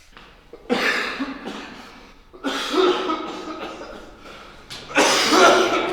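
A man's coughing fit: three harsh bouts about two seconds apart, each starting suddenly and trailing off.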